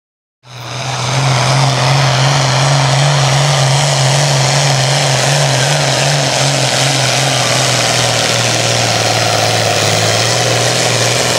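Diesel farm tractor engine at full throttle under heavy load, pulling a weight-transfer sled: a loud, steady drone with little change in pitch, cutting in abruptly about half a second in.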